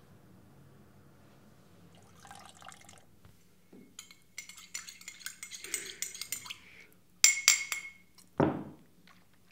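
Water running briefly at a bathroom sink, then a few sharp, ringing clinks of a cup and a short loud splash near the end.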